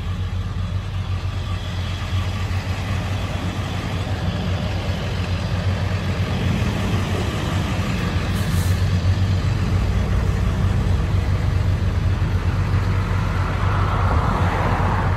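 Tow truck engine idling steadily, a low, even hum with a broader rush of noise building near the end.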